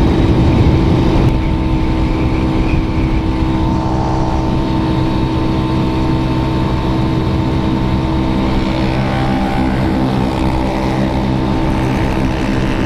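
Motorcycle engine running at a steady high cruising speed, one unchanging engine pitch under a haze of road and wind noise.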